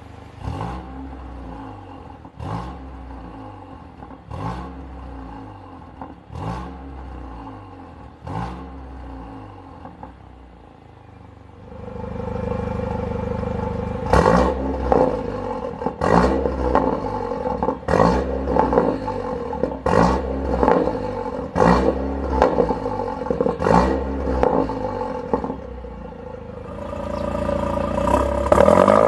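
Mercedes-AMG A45's turbocharged 2.0-litre four-cylinder (M133), with a decat downpipe and valved catback exhaust, blipped in short revs held to 2000 rpm. With the exhaust valve closed the revs come about every two seconds and are quieter; with the valve open, from about halfway, they come about once a second and are louder, each ending in a sharp crack. Near the end the engine note climbs steadily.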